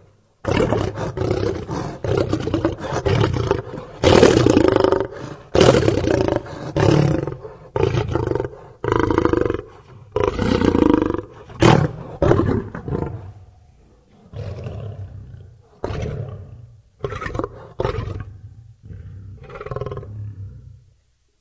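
A lion roaring: a run of long, loud roars, followed by shorter grunting calls that grow fainter and further apart toward the end.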